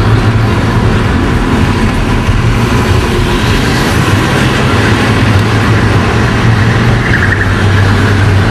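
Engine and tyre noise heard from inside a van driving on a highway: a steady low drone under an even rushing noise.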